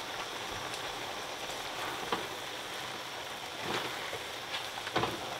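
A pot of potato greens simmering in stock, making a steady bubbling hiss. Three light knocks are heard over it.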